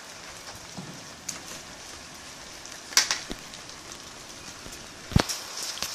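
Steady rain falling on wet concrete and a puddle. Two loud, sharp impacts come about three seconds in and near the end, with a fainter one about a second in.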